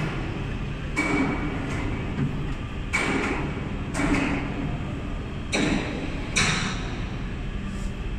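Hydraulic rubber injection molding machine running: a steady low hum, broken by five short rushes of noise at irregular intervals.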